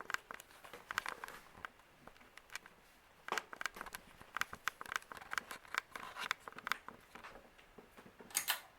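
Scattered soft clicks and crinkling rustles, irregular and close to the microphone, with a brief louder cluster near the end.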